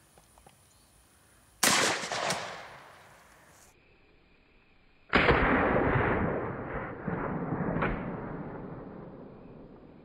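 Two blasts from a pump-action 12-gauge shotgun firing slugs, about three and a half seconds apart. Each is followed by a fading echo; the second rings out longer.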